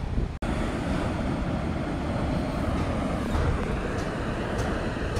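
Wind buffeting a phone's microphone on the beach, a steady low rumble over the surf, with a brief dropout about half a second in.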